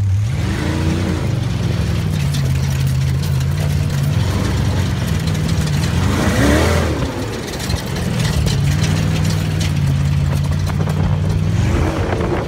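Dune buggy engine running in a steady low drone, with an engine revving up and back down three times: about a second in, around six and a half seconds in, and near the end.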